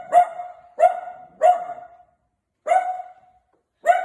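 A dog barking repeatedly: about five barks, all at much the same pitch, with a pause of about a second partway through.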